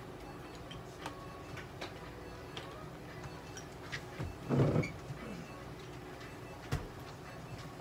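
Quiet handling noise over a steady low hum: scattered light clicks, one short muffled bump about halfway through and a sharp click near the end.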